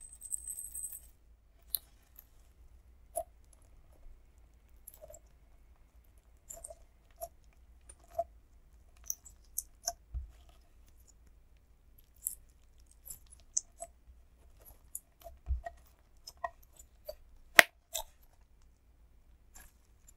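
Hands kneading and folding clear slime with sprinkles in it, making scattered sticky clicks and pops, one louder pop about three-quarters of the way through. In the first second there is a brief high hiss of sprinkles shaken from a plastic tube onto the slime.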